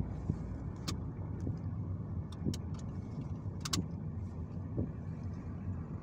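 Steady low rumble of road and engine noise heard from inside a moving vehicle, with a few short sharp clicks scattered through it.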